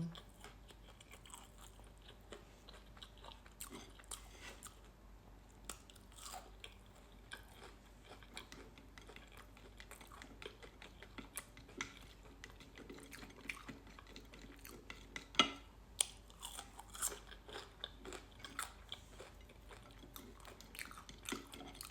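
A person chewing food, with occasional short crunches from bites, a few of them louder about two-thirds of the way through.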